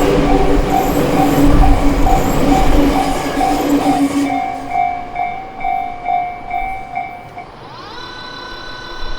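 A train passing over a Japanese level crossing while the electronic crossing bells ring in a steady, evenly pulsed pattern. The train noise dies away after about four seconds, one bell keeps ringing, and the bells stop about seven seconds in. Near the end, steady music tones come in.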